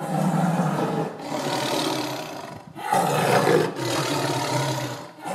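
Tiger roaring: several long roars, one after another.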